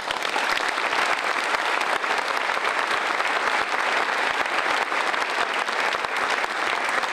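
Audience applauding with steady, dense clapping.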